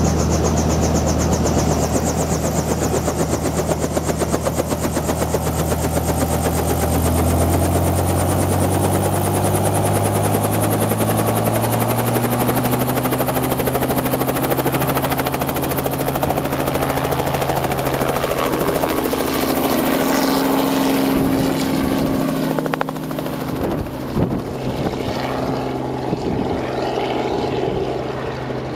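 Robinson R44 helicopter running close by, its six-cylinder piston engine and rotor beat steady and loud, rising in pitch as the rotor speeds up a third of the way in. Later it lifts off and moves away, the sound growing a little weaker and ragged with gusts of rotor wash.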